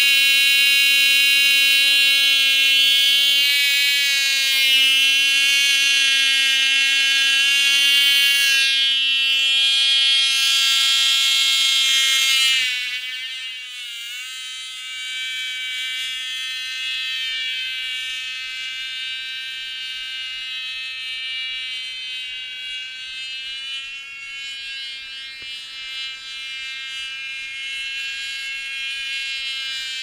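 Cox .049 two-stroke glow engine running at high revs with a high, steady whine up close. About twelve seconds in it drops sharply to a fainter buzz that wavers in pitch as the model plane flies away.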